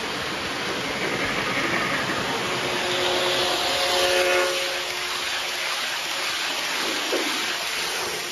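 Lionel O gauge Polar Express high-speed Acela train set running past at speed on the track: a steady rushing of wheels and motors that swells as the train goes by about four seconds in, with a faint held tone under it.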